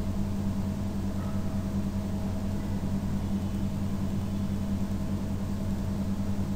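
Steady low hum, even throughout, with a faint higher tone above it and no clicks or changes.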